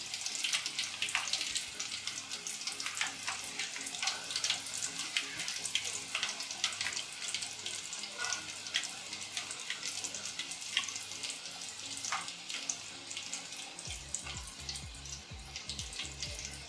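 Batter-coated green chili rings deep-frying in hot oil in an aluminium kadai: the oil bubbles and crackles steadily with frequent sharp pops as handfuls of battered rings are dropped in.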